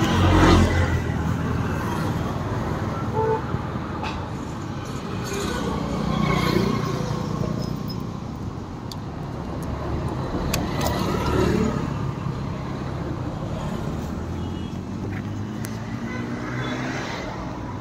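Road traffic: a steady low rumble of vehicles, with several passing one after another, each swelling and fading.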